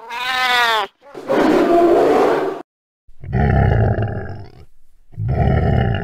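A cat's drawn-out meow that rises and falls in pitch, then three long roars like a big cat's, each lasting about a second, with short gaps between them.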